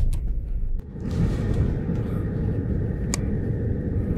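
A low rumble cuts off just under a second in. Then comes the steady low road and engine noise of a moving car, heard from inside its cabin, with one sharp click about three seconds in.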